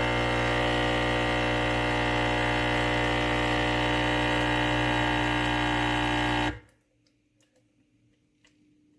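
ChefWave espresso machine's pump running with a loud, steady hum while it dispenses water during brew-volume programming. It cuts off suddenly about six and a half seconds in.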